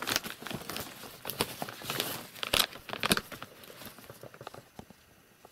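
Thin plastic bag crinkling and rustling as it is lifted and handled, dying away after about three and a half seconds.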